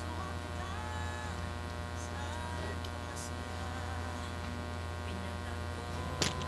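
Steady low electrical hum, with a faint click near the end.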